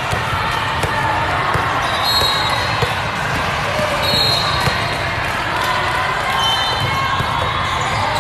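Indoor volleyball hall din: balls thumping on the hard sport-court floor and being struck, with a background of spectators' chatter, all echoing in the large room.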